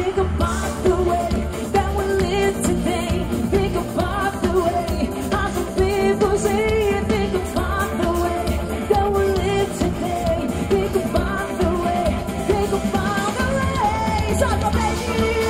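Live band playing a pop song, with a lead singer over a steady bass and beat.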